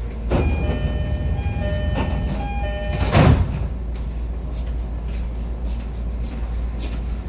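E231-series commuter train at a station stop: a short run of chime tones stepping between notes, then the sliding doors close with a thud about three seconds in. A steady low hum of the train's equipment runs underneath.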